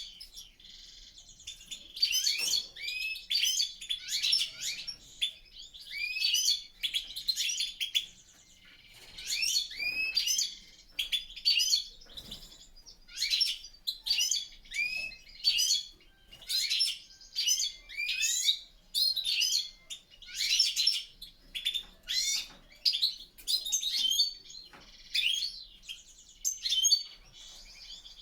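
European goldfinches in an aviary singing and twittering: a continuous stream of short, bright chirping phrases, one after another.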